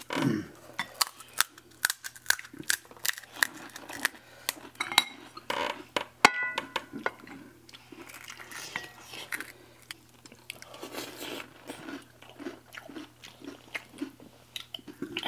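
Metal spoons clicking and scraping on ceramic plates and bowls, with crisp puri shells crunching as they are cracked open and chewed. One clink rings out about six seconds in.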